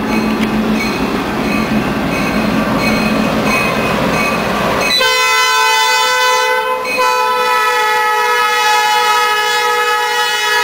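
CN diesel freight locomotive passing close by, engine running with wheel noise; about five seconds in its air horn starts, a chord of several steady tones held on, with a brief break a couple of seconds later.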